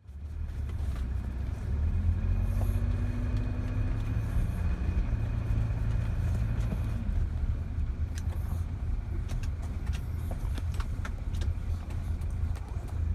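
Car driving: a steady low rumble of engine and road noise, with the engine note rising for a couple of seconds near the start.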